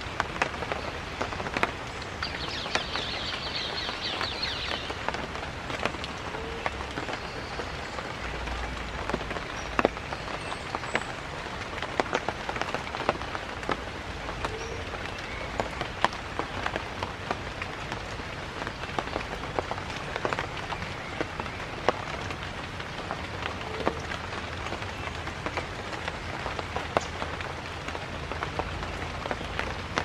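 Steady rain falling on foliage, with many separate drops ticking on the leaves. A brief high trill sounds about two to five seconds in.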